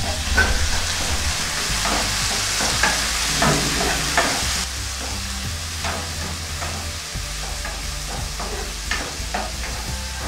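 Chopped tomato, onions and green chillies sizzling in oil in a granite-coated pan, stirred with a plastic ladle that scrapes and taps against the pan. The sizzle eases a little about halfway through.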